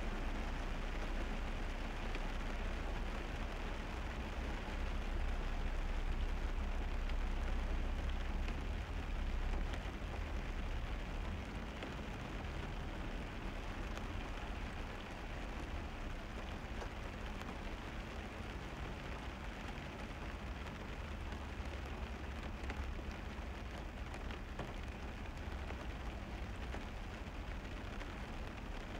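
Steady rain and wet-road noise from a car driving in the rain, over a deep low rumble; it eases slightly about ten seconds in.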